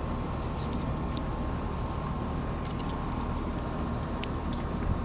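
A steady low mechanical hum, with faint scattered clicks and scrapes of a knife working through a mullet on a table.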